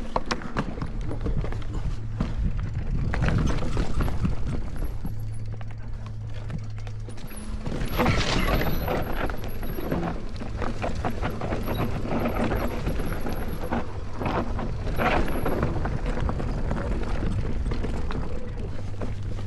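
Electric mountain bike riding down a rough trail: continuous rattling and clattering of the bike over roots and rocks, with tyre and wind noise and a steady low hum. Louder clattering comes at times, around the middle of the stretch.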